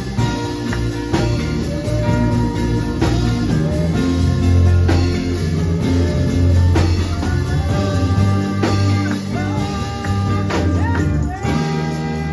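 Live church band playing a gospel groove: electric guitars, keyboard and drum kit, with a heavy bass line under steady drum and cymbal hits and a bending lead line on top.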